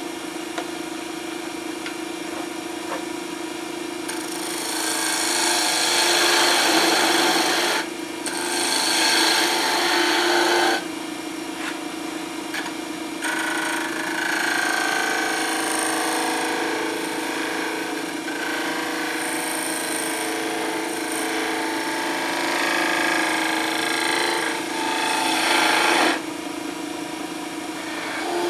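Wood lathe running with a steady hum while a hand-held turning tool cuts the spinning cherry wood. The scraping cut comes in three stretches, about four to eight seconds in, eight to eleven, and thirteen to twenty-six, with only the motor hum between them.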